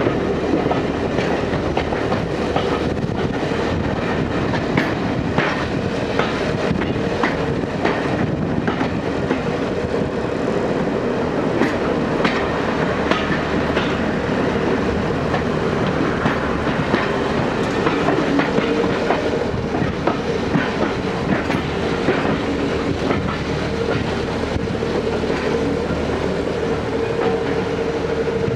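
Passenger carriage of a steam-hauled heritage train running along the track, heard from the carriage window: a steady rumble with irregular clicks and clacks of the wheels over the rails, and a steady ringing tone that grows stronger in the second half as the train runs into the station.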